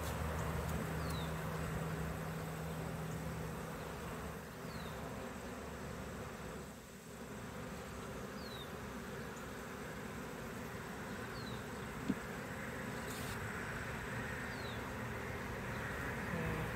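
A large mass of honeybees buzzing steadily around open nucleus hives, with a low hum in the first few seconds.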